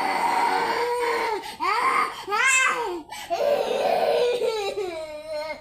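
A baby crying in several long cries, with short breaths between them.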